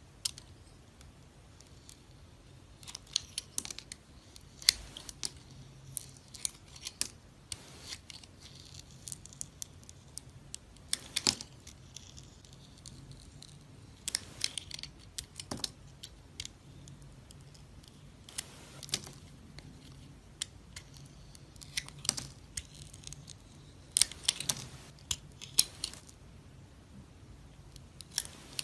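A knife cutting and carving dry bar soap: crisp crackling and crunching clicks that come in short irregular clusters, with brief pauses between cuts.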